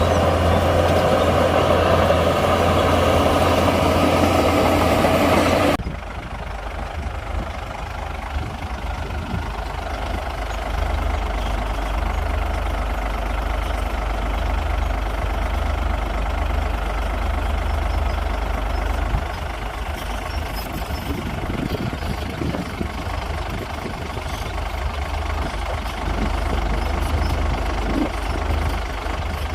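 Heavy diesel engines of earthmoving machinery running. The sound is loud at first, then cuts abruptly about six seconds in to a quieter, low, steady engine sound.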